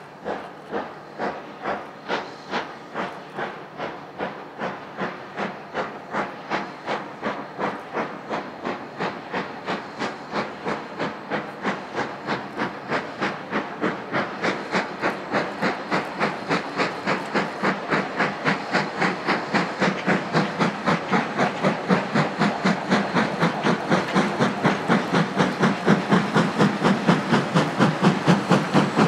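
LNER Thompson B1 class 4-6-0 steam locomotive 61264 working hard away from a station with five coaches. Its two-cylinder exhaust beats quicken from under two to about three a second and grow louder as it approaches.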